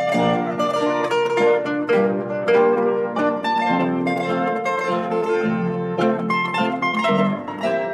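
Background music: an instrumental of quick plucked-string notes at a steady pace.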